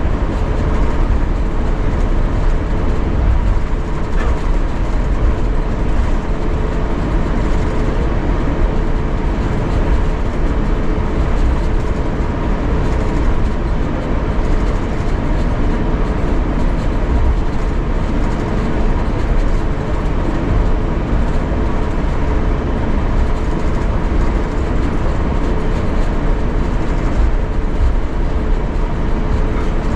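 Airbus A350-900 cabin noise on the ground before takeoff: a steady low rumble with a steady two-note hum from the Rolls-Royce Trent XWB engines at idle.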